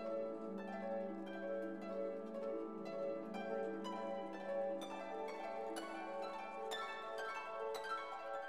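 Background music: a plucked-string melody of short, evenly paced notes over a low held tone.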